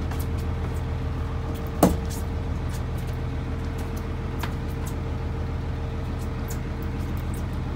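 Boat engine running steadily with a low hum, with one sharp knock about two seconds in and a few light ticks.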